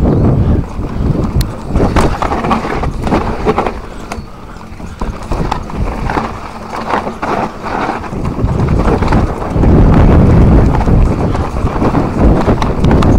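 A YT mountain bike descending a rough dirt trail: tyre noise over the ground, with frequent sharp rattles and knocks from the bike over roots and stones. A heavier low rumble builds about ten seconds in.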